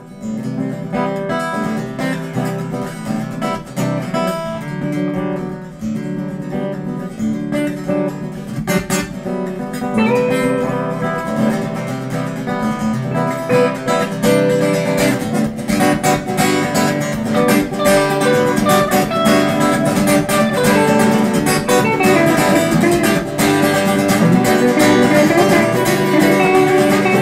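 Background music led by acoustic guitar, strummed and plucked in a steady rhythm, growing louder about ten seconds in.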